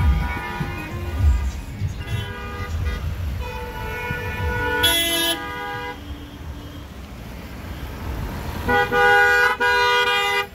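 Vehicle horns honking several times in road traffic, ending in a long loud horn blast with a brief break near the end, over the low rumble of a moving vehicle.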